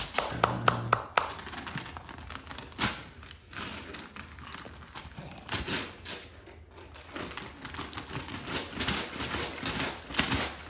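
Paper rustling and crinkling as a baby pulls at the wrapping of a gift box, with a few sharp taps on the box in the first second.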